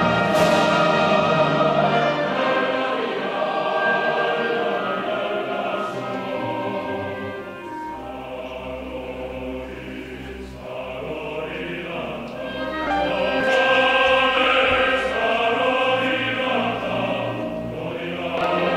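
Background music: a classical piece with an orchestra and a choir singing sustained notes. It gets softer about halfway through, then swells again.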